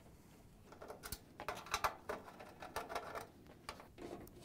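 Hand-held Torx T20 screwdriver backing screws out of the metal top of a dryer's control console. A faint, irregular run of clicks and scrapes begins about a second in.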